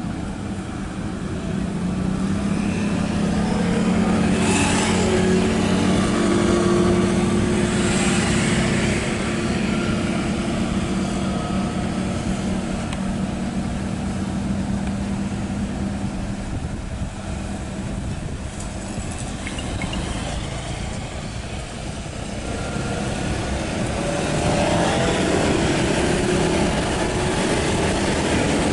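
Road roller's engine running steadily with a low hum, growing louder over the first few seconds, easing off for a while after the middle, and louder again near the end.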